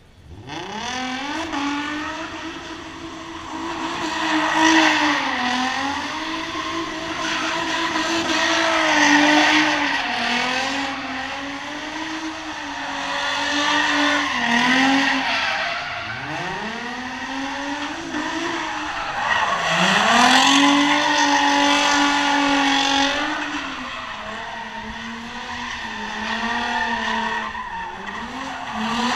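Drift car sliding sideways with its engine held at high revs, climbing steeply three times (near the start, about halfway and about two-thirds in) and dipping briefly between, over continuous tyre squeal as the rear tyres spin and smoke.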